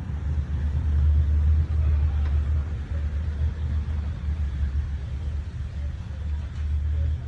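Low, steady rumble.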